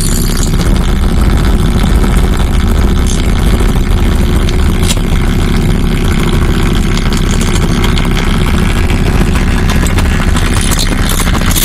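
Loud, steady electronic noise drone from live electronics: a dense low rumble like a running engine, with crackling noise above it.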